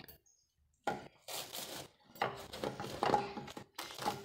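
Plastic cling film being pulled off its roll and stretched over a bowl, crinkling and crackling in a series of bursts that start about a second in.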